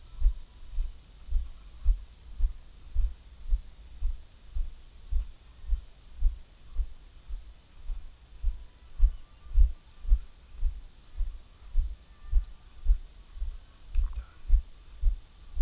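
Dull, deep thumps about twice a second: footsteps jolting a body-worn action camera as a person moves across grass, with faint high ticking over the top.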